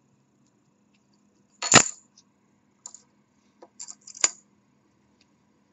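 A few sharp metallic clicks and light clinks from a small engraved metal pet ID tag and its ring as they are handled. The loudest click comes a little under two seconds in, and another sharp one a little past four seconds.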